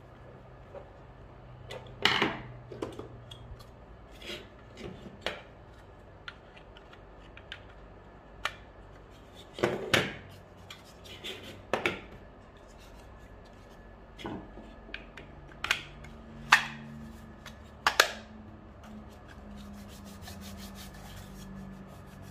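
BV20 note acceptor being taken apart and cleaned by hand: a screwdriver turning out a screw, then scattered sharp clicks and knocks as plastic parts, the circuit board and the screwdriver are handled and set down. Near the end, a wet wipe rubbing the plastic housing.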